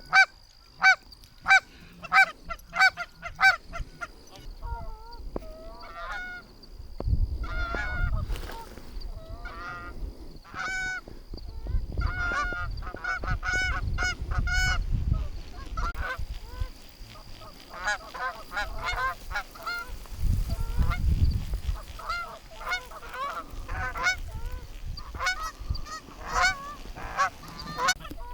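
Canada goose honking and clucking: many short, sharp calls, evenly spaced at first and then overlapping in quick runs, as geese come in to the decoys. Low rumbles come and go underneath.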